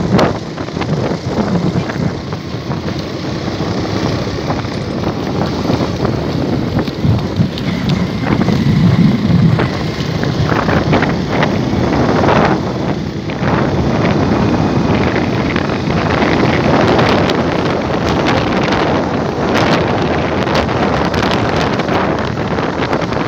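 Small motorcycle riding along a rough road, its engine running steadily under heavy wind buffeting on the microphone.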